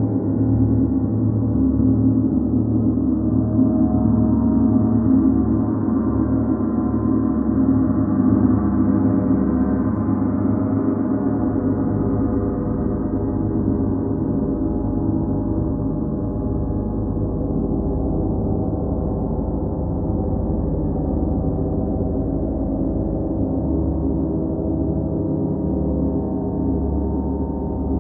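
Large hanging gongs, planetary gongs and a Paiste gong among them, played continuously into a sustained, shimmering wash of many overlapping ringing tones with a deep hum underneath. The wash swells slightly in the first half, then holds steady, with no single strike standing out.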